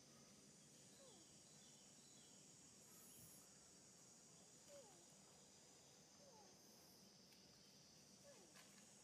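Faint outdoor ambience: a steady, high insect hum, with a few faint short calls that fall in pitch, about every second or two.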